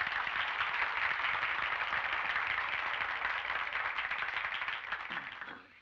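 Audience applauding on a 1930s film soundtrack, a steady dense patter of many hands that dies away near the end.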